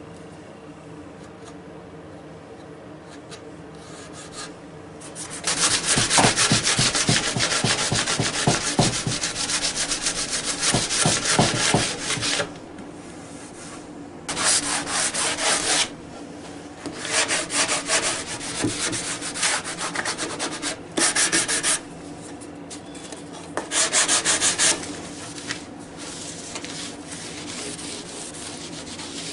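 Hand sanding of a varnished southern yellow pine box with a sanding sponge block: quick back-and-forth scrubbing strokes in four bouts, the first and longest lasting about seven seconds from about five seconds in, then shorter bouts with pauses between. It is a light sanding of the finish before the last coat goes on.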